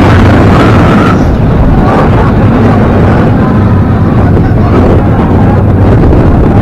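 Wind buffeting an onboard microphone, with the rumble of the Taron roller coaster train running fast along its steel track. Loud and steady throughout, heavy in the low end.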